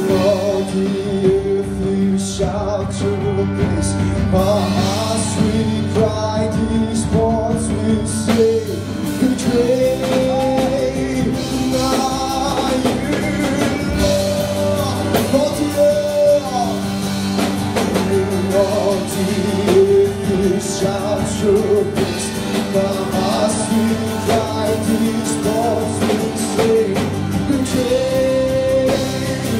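Live band music: a woman singing lead into a microphone, backed by a drum kit and band, played through a PA.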